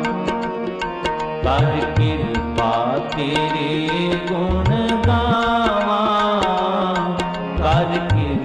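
Sikh kirtan music: tabla playing a steady rhythm, its bass drum strokes bending in pitch, under a melody that slides between notes.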